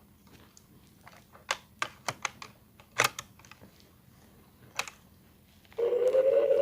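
Sharp plastic clicks, irregular and spread over a few seconds, as the Buzz Lightyear talking action figure is handled and worked. Near the end the toy's electronic sound effect starts up loudly, a tone rising steadily in pitch.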